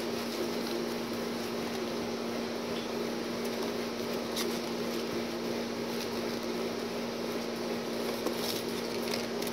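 Steady appliance or fan hum with one constant low tone. A few faint paper rustles come through as the pages of a booklet are turned, one about four seconds in and a couple near the end.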